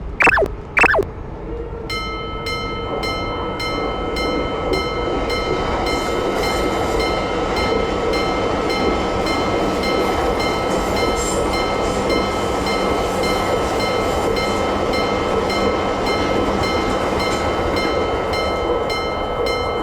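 Japanese level-crossing warning bell starting about two seconds in and ringing in an even, repeating rhythm, while a train runs through with a steady rumble. Two short sliding-pitch cartoon sound effects sound at the very start.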